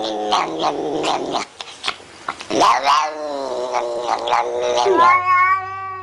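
Domestic cat yowling in repeated drawn-out cries while being brushed. About five seconds in, a different long-haired cat starts one long, steady meow over a low hum.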